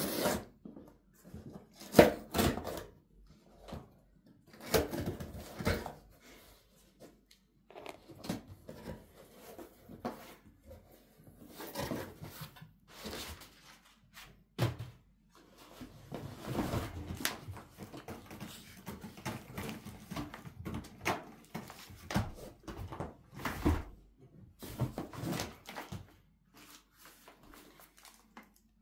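Cardboard box being unpacked by hand: crumpled brown packing paper and box flaps rustling and crinkling in irregular bursts, with occasional sharp knocks as the contents are handled.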